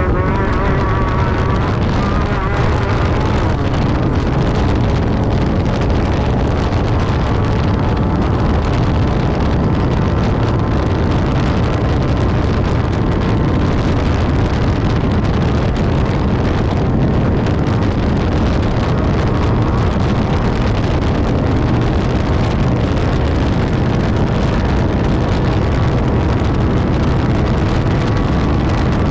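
Class 10 off-road race buggy at speed: a loud, steady mix of engine and rushing noise, with engine pitch lines rising briefly at the start.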